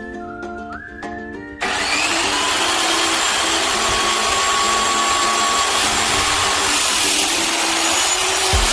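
Background music, then about one and a half seconds in a miter saw's motor comes in abruptly and runs loudly and steadily for about seven seconds with a faint whine over its noise, cutting structural lumber to length, before dropping away at the very end.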